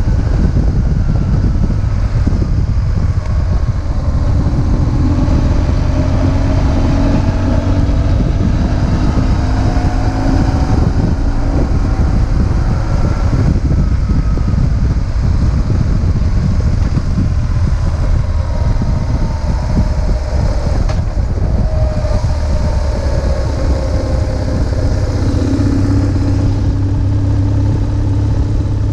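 BMW R1150GS's 1130 cc boxer twin engine running while riding, its note rising and falling with the throttle and dipping briefly a few times.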